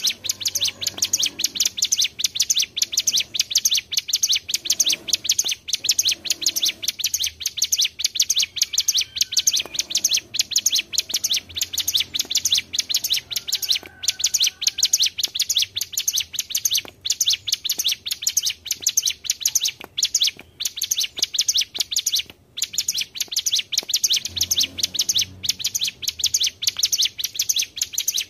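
Hill prinias (ciblek gunung) singing a long, unbroken run of fast, high chirping notes, about five a second, with a brief break about three-quarters of the way through.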